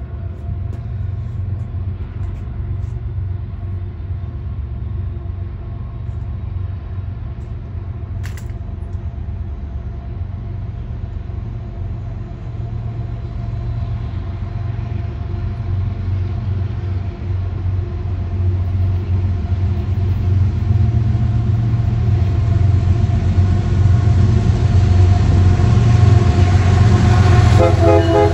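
Diesel locomotives rumbling steadily, growing louder as the train draws closer. Near the end, a locomotive horn starts to sound.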